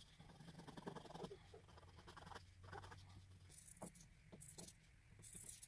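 Faint scratching of a pencil tracing on cotton fabric, then, in the second half, scissors cutting through the fabric in a few short rasping strokes.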